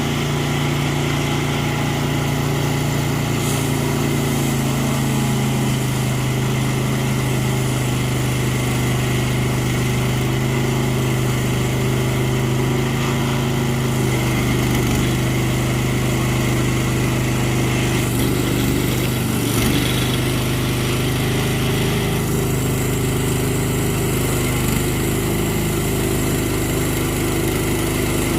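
Small gas engine of a portable bandsaw sawmill running steadily, its note wavering briefly about two-thirds of the way through.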